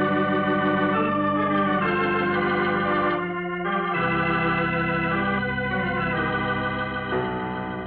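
Organ music: sustained chords of a radio-drama musical bridge, moving to a new chord about halfway through and again near the end.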